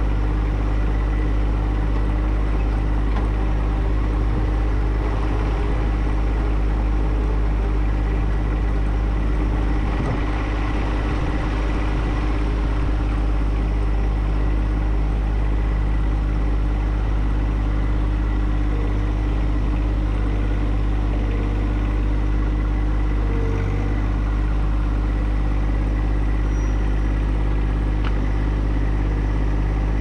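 John Deere 1025R compact tractor's three-cylinder diesel engine running at a steady speed, heard close up as the tractor drives along.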